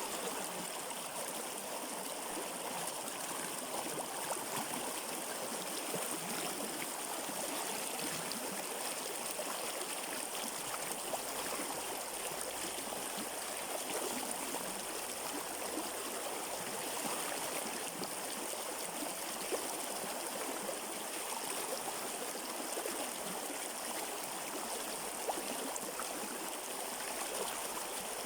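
A river flowing over rocks: steady rushing and gurgling water, even throughout.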